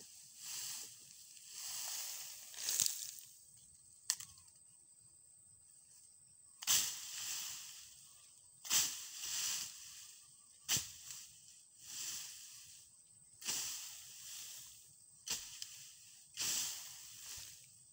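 Hoe chopping into undergrowth and soil in repeated strokes, about one every one to two seconds: each stroke is a sharp hit followed by a rustling swish of cut brush and grass.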